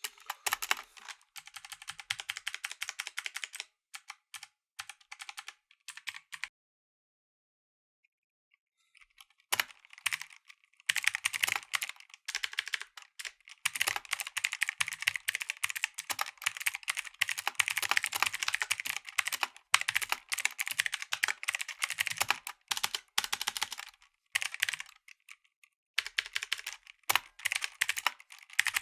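Typing on a mechanical keyboard with clicky blue switches: rapid keystrokes in bursts. The typing stops for about three seconds a quarter of the way in, then runs on long and steadily.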